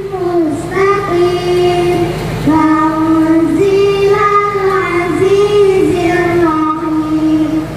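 A high voice singing long, held notes that slide and waver between pitches, played over a PA sound system. A steady low hum runs beneath it.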